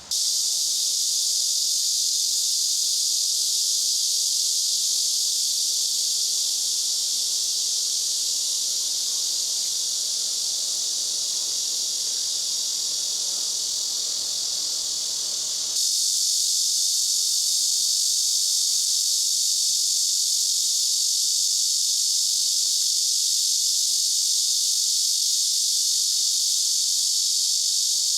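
Cicadas buzzing in a dense, steady, high-pitched summer chorus. The level jumps up abruptly a little past halfway.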